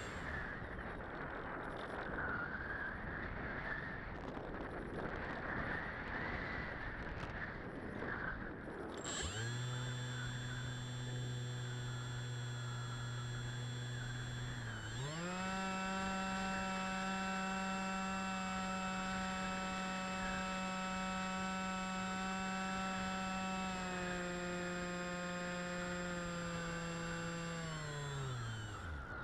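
The electric motor and propeller of an FPV model aircraft, recorded by its onboard camera. First there is only a rush of air. About nine seconds in, a steady motor drone starts. It steps up to a higher pitch at about fifteen seconds, dips a little at about twenty-four, and near the end winds down to a stop as the throttle is cut.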